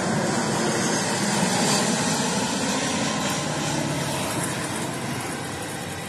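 Jet airliner passing low overhead on landing approach, gear down: a steady engine roar that is loudest a couple of seconds in, then slowly fades as the plane moves away.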